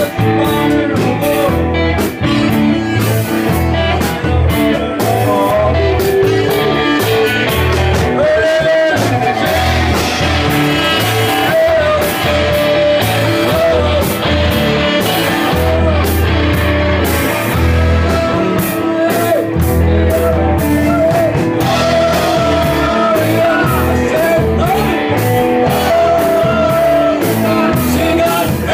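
A live band playing loudly, with a drum kit and guitar and a singing voice.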